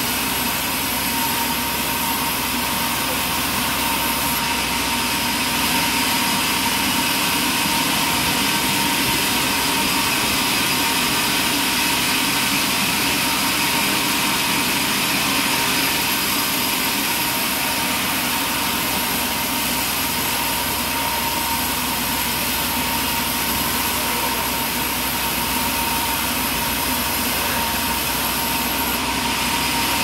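Large band sawmill running steadily while ripping a timber board lengthwise, a constant whine over a steady drone.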